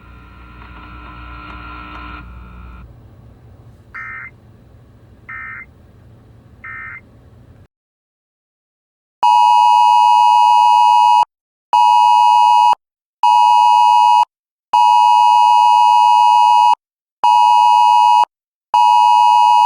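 An EAS radio broadcast ends with three short, rasping data bursts, the end-of-message code. About nine seconds in, a phone's Wireless Emergency Alert attention tone starts: a loud two-pitch tone in a long-short-short pattern that starts over, signalling an AMBER Alert received by cell broadcast.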